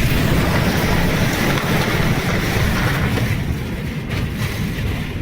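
EF2 tornado winds blowing hard: a loud, dense rush of wind with heavy low buffeting on the microphone, easing a little over the last two seconds.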